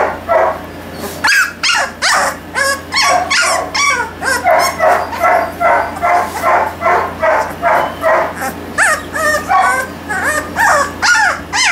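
A two-and-a-half-week-old Weimaraner puppy crying in a rapid run of short, high-pitched yelps and whimpers, about two to three a second.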